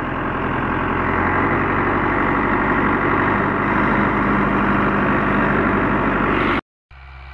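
Tractor's diesel engine running steadily, loud and close as heard from the driver's seat. Near the end it drops out for a moment and comes back quieter.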